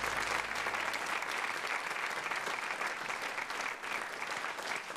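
Studio audience applauding, dense steady clapping that thins a little near the end.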